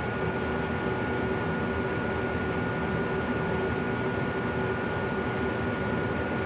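Miller E3 furnace running: a steady rush of blower air with a constant buzz made of several steady tones, one mid-pitched and one higher. This is the buzzing noise the owner asks about.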